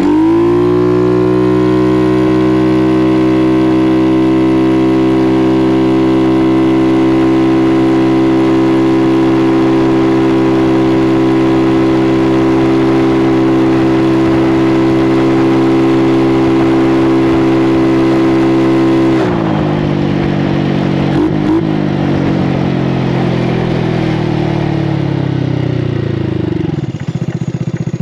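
Fuel-injected GY6 171cc scooter engine in a Honda Ruckus under full throttle: the revs climb sharply in the first second, then hold at one steady high pitch while the scooter rides on. About nineteen seconds in the throttle closes and the engine note falls away steadily as it slows toward idle near the end.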